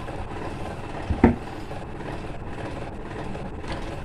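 Handling noise of electrical wires being twisted together by hand over a plastic junction box, with one sharp knock about a second in, over a steady low background rumble.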